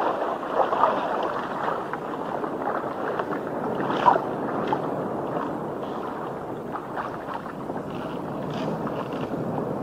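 Sea water washing and lapping around a bamboo raft on choppy open sea, with wind blowing across it. A brief, sharper sound stands out about four seconds in.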